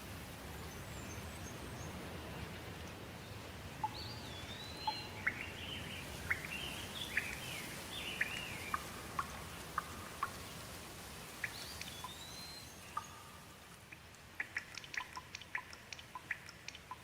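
Steady rain with birds calling over it in short, sweeping whistled notes. Near the end the rain thins and scattered individual drips tick through.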